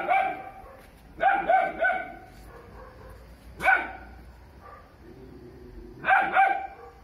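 Three-month-old Doberman puppy barking on guard: short barks in clusters of one to three, with pauses of a second or two between the clusters.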